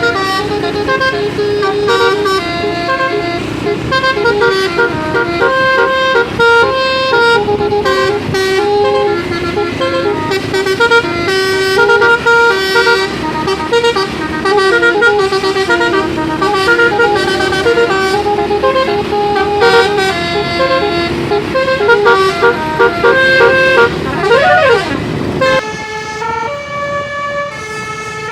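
A bus's Basuri telolet air-horn set, a 12-note array of roof-mounted trumpets, playing a tune in quick changing notes. About 24 seconds in comes one short siren-like rise and fall in pitch, then a few longer held notes.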